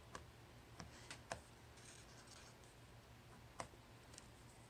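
A paint marker's nib being pressed down on paper to prime it: a few faint, scattered clicks over a low hum.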